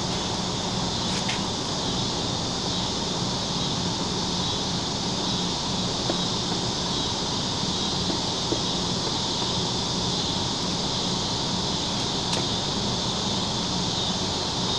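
Steady insect chirring with a steady low hum underneath, and a couple of faint clicks.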